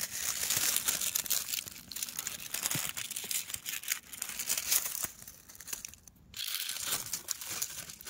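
Close rustling and crackling, full of small sharp ticks, easing off briefly about six seconds in.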